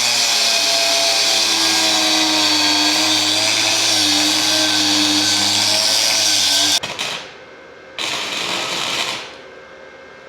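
Flux-core wire-feed welder laying a weld: a steady crackling hiss with a faint hum for about seven seconds that cuts off abruptly, then a second short weld about a second later, tacking a steel backer plate in place.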